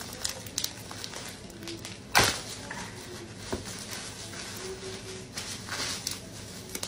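Bubble wrap and a plastic bag crinkling and rustling as a package is unwrapped by hand. There are scattered small crackles, one loud sharp crackle about two seconds in, and denser rustling near the end.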